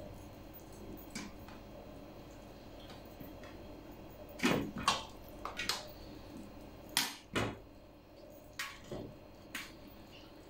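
Scattered short clinks and soft knocks of spoons and hands against a metal tray and a metal pot while stuffed cabbage leaves are filled and rolled, mostly in the second half.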